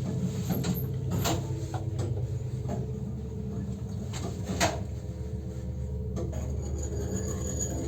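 MLZ passenger lift running, with a steady hum from its AS-72 electric motor and drive. Scattered clicks and knocks sound from the cab and shaft, the sharpest about halfway through.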